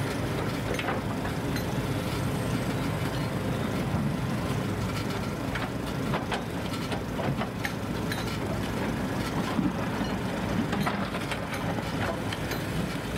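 Heavy diesel machinery, excavators and a recovery truck, running steadily as a low rumble, with scattered clanks and knocks.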